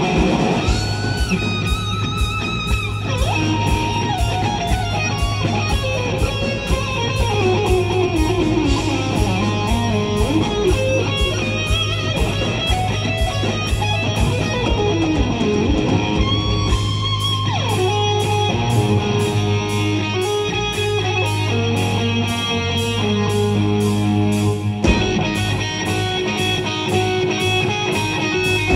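Live rock band: a lead electric guitar plays an instrumental melody of sustained, bending notes with long sliding pitch falls, over a steady drum beat and bass.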